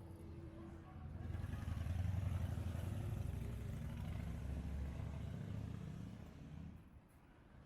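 A motor vehicle passing on a city street: its rumble and tyre noise rise about a second in and fade away near the end.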